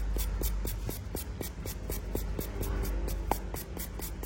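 Polishing pad scrubbing the silver-plated case of a Zippo lighter: a dry, scratchy rubbing with short irregular strokes.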